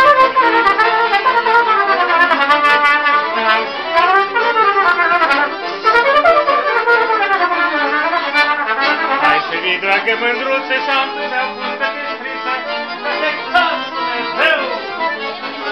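Accordion playing a folk dance tune in quick running notes that wind up and down, loud and unbroken.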